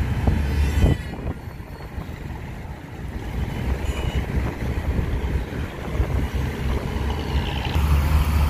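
Moving car heard from inside the cabin: a steady low rumble of road and engine noise, louder in the first second and again near the end.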